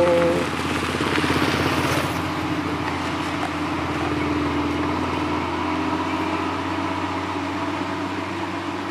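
A small motorcycle passes close by early on, and the engine note of a large truck drawing away down a dirt road keeps up a steady hum.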